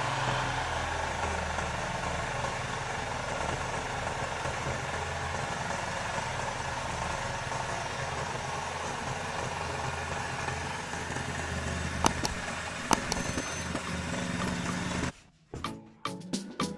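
Freshly restored Honda GX160 single-cylinder four-stroke engine running steadily, with two sharp clicks near the end. It cuts off abruptly about fifteen seconds in, and music with sharp beats follows.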